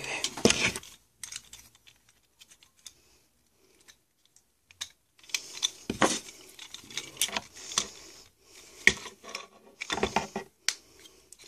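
Plastic Transformers Smokescreen figure being handled: scattered sharp clicks and light clatter, almost quiet for a few seconds after the start, then busier clicking from about halfway.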